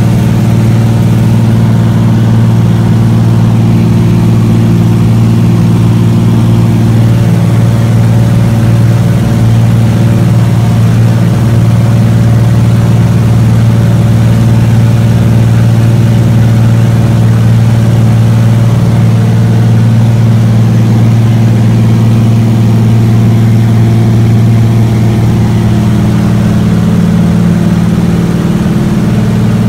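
DH Beaver's Pratt & Whitney R-985 nine-cylinder radial engine and propeller running steadily with a deep, loud drone, heard from inside the cockpit as the floatplane moves on the water. It eases slightly near the end.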